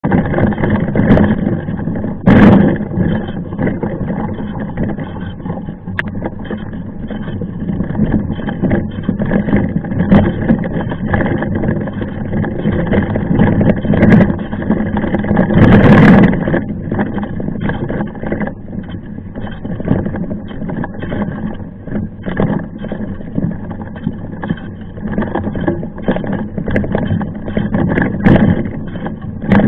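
Mountain bike riding on a trail: continuous wind and rolling noise with occasional sharp knocks and rattles.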